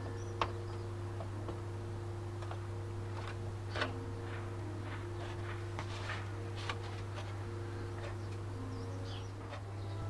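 A steady low hum with scattered light clicks and taps, the sharpest about half a second in and near four seconds, and faint high chirps.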